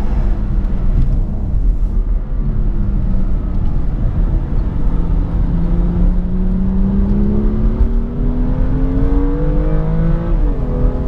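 BMW M2's turbocharged straight-six engine pulling under acceleration, its note rising steadily for several seconds, then dropping sharply at an upshift near the end before climbing again.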